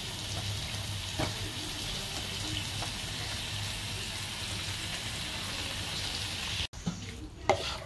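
Diced raw chicken breast sizzling in butter with ginger, garlic and dried chillies in a hot non-stick pan: a steady frying hiss with a faint click or two. Near the end the sizzle cuts off abruptly and comes back much fainter, and a sharp knock follows.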